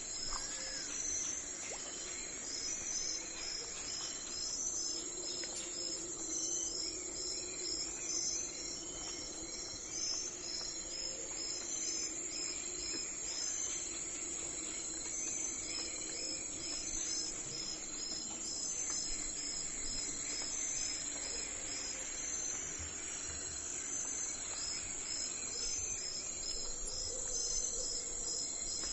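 Insects chirping steadily in an even, repeating high-pitched rhythm over a soft outdoor background, with a brief bird note right at the start.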